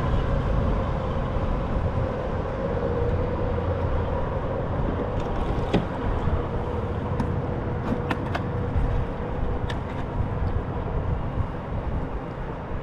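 Steady low rumble with a droning hum, like engine or motor traffic noise, and a few light clicks partway through as fishing tackle is handled.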